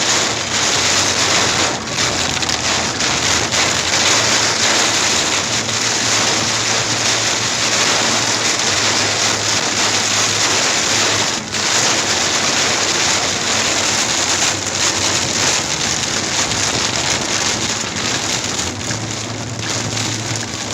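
Heavy thunderstorm downpour hitting a car's roof and windshield, heard from inside the cabin as a loud, dense, steady hiss that dips briefly about eleven seconds in.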